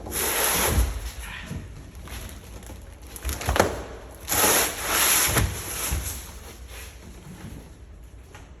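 Rustling and knocking as packaging is handled and moved about, with loud bursts of rustle near the start and again about halfway through, and a couple of sharp knocks.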